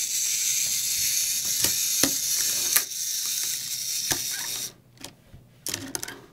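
Small toy's gear mechanism whirring with a few ticks, stopping about four and a half seconds in, then starting again in short spurts.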